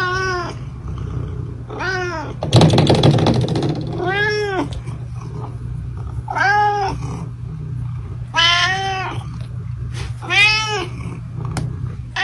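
Domestic cat meowing repeatedly, about six separate meows that each rise and fall in pitch, with a loud noisy burst a few seconds in.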